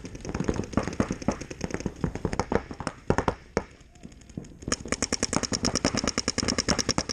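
Paintball markers firing: scattered pops at first, a short lull about four seconds in, then a rapid, even stream of shots at roughly ten a second.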